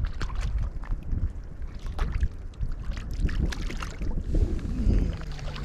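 Wind rumbling on the microphone out on the water, with scattered clicks and knocks and a short falling tone near the end.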